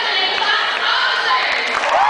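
Crowd of high-school students shouting and cheering, many voices overlapping.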